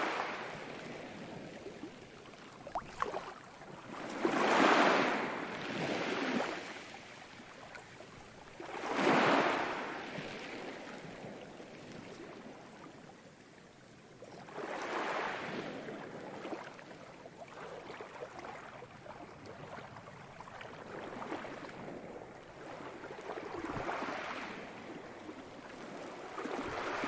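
Ocean waves washing in and out, each wave swelling and fading over a few seconds.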